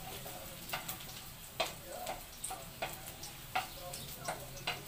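Spatula stirring in a wok and knocking against it in irregular sharp clicks, over a light sizzle of garlic and onion sautéing in a little oil.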